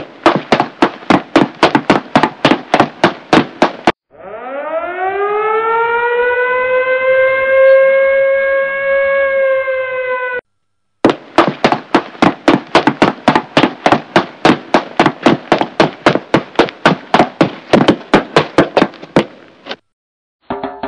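Cartoon sound effects: rapid, evenly spaced knocks at about five a second for about four seconds, then a wind-up siren that rises in pitch and holds a steady tone for about six seconds. After a short break the rapid knocks return for about nine seconds and fade out near the end.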